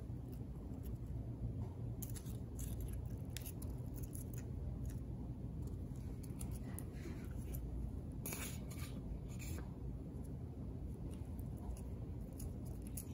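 Popped popcorn and paper being handled: light, scattered crackles and rustles as pieces are picked up off a paper towel and pressed onto glue on a paper sheet, with a steady low hum underneath.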